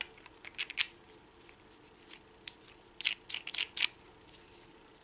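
Light clicks and scrapes of a star knob being screwed by hand onto a T-bolt through a wooden stop block, in two short bursts: one just under a second in and another around three to four seconds in.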